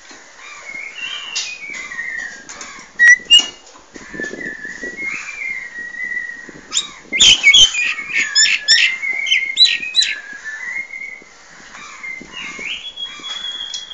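Caged myna whistling and calling: a steady stream of whistled notes that glide and step in pitch, broken by two loud sharp clicks about three seconds in and a burst of harsh clicking chatter from about seven to ten seconds in.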